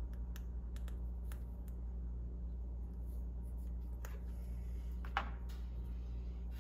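A handful of light clicks and ticks from an oil pressure gauge sensor being handled, with one sharper click about five seconds in, over a steady low hum.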